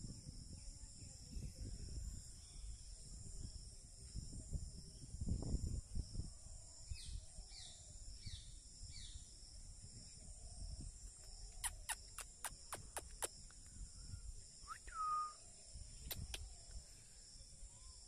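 Steady high-pitched insect chorus, with scattered bird calls over it: four short falling notes a little before halfway, a quick run of sharp ticks about two-thirds through, and a single note sliding down near the end. A low rumbling noise sits underneath and is loudest about five seconds in.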